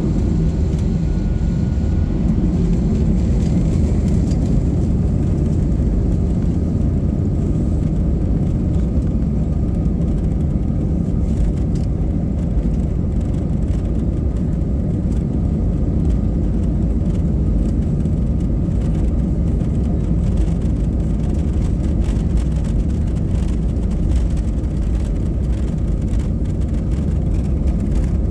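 Steady, loud low rumble of an Airbus A320's jet engines and wheels rolling on the runway, heard from inside the passenger cabin.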